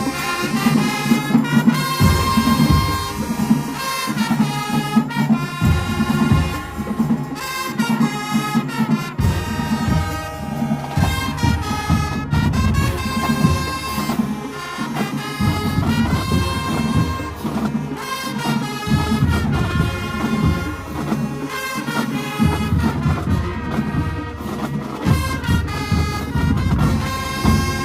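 Marching band playing: brass section carrying the tune over steady drumline beats, ending abruptly.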